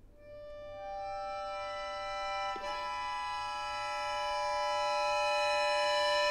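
Solo accordion coming in out of silence with held notes, more notes entering one after another to build a sustained chord that slowly swells louder. A brief click and momentary dip in level comes about two and a half seconds in.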